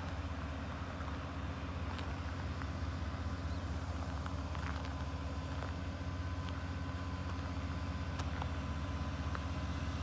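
Steady low engine drone of a rice combine harvester working the paddy.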